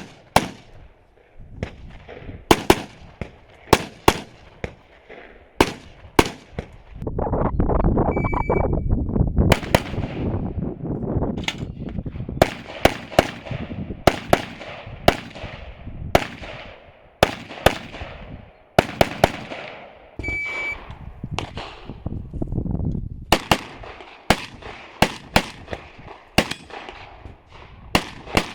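Semi-automatic gunshots fired close by in quick strings of two to five, with short gaps between strings, several dozen in all. A loud low rumble swells for about two seconds around eight seconds in, and two short high beeps sound, one about eight seconds in and one about twenty seconds in.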